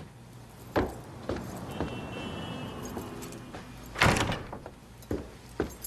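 A door being opened and shut: a few clunks and knocks, the loudest about four seconds in, over a steady low hum.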